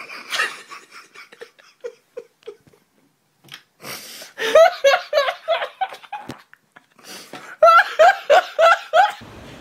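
A young man laughing hysterically in two long bouts of rapid, pulsing laughs: the first about four and a half seconds in, the second near the end.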